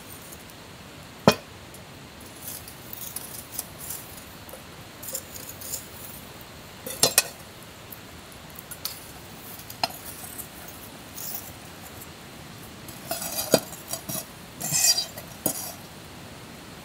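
Metal fire tongs clink against a steel wood-burning stove and a pan lid as burning embers are picked from the fire and set on the lid: a handful of sharp metallic clinks and clacks spread through, with small crackles from the fire in between.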